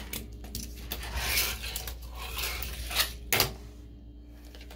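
Small homemade fingerboard rolling and clacking on a bathroom sink: the wheels rattling over the surface, with a few sharp clacks of the board hitting, two close together about three seconds in.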